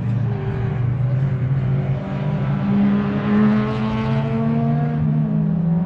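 A car engine pulling under load, its pitch climbing slowly over several seconds, dipping briefly about five seconds in, then rising again.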